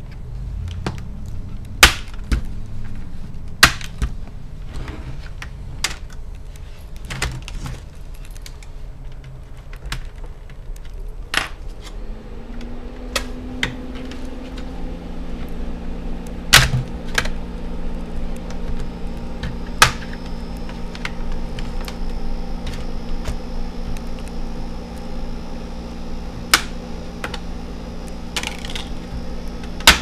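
Plastic clips of an HP Pavilion TouchSmart Sleekbook laptop's palm rest snapping loose as it is pried off around the edges: sharp clicks and snaps at irregular intervals. A steady low hum comes in about halfway through.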